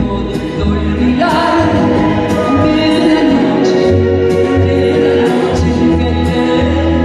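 A woman singing a Mexican ranchera song live into a microphone, backed by a band with a repeating bass pulse.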